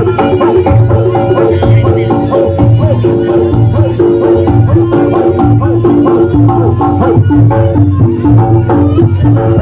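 Reog Ponorogo gamelan accompaniment: drums and a low repeating pulse under short, steady pitched percussion notes, in a continuous rhythm.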